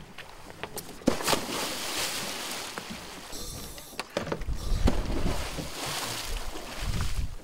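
Water splashing and sloshing, with a few sharp knocks about one and four seconds in.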